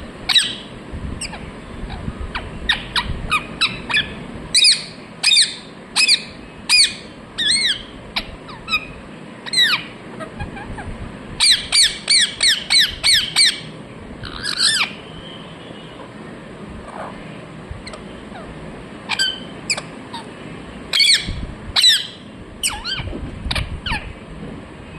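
Pet parrot squawking in short, sharp calls, some singly and some in quick runs, with a rapid string of about eight calls roughly halfway through.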